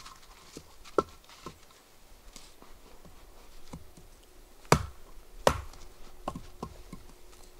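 Scattered clicks and taps of small objects being handled at close range, with two sharper knocks a little under a second apart about two-thirds of the way through.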